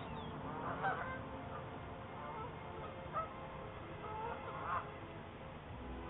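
Geese honking off and on: short calls about a second in, after three seconds and near five seconds.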